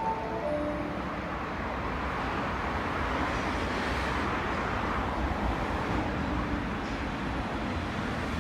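Osaka Metro Midosuji Line train running along the station platform: a steady rush of wheel and running noise that swells to a peak about four seconds in and then eases off. A few chime-like tones fade out in the first second.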